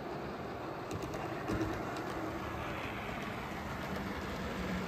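Model Class 47 diesel locomotive hauling a rake of coaches along the layout's track: a steady running noise with a low hum and a few light clicks.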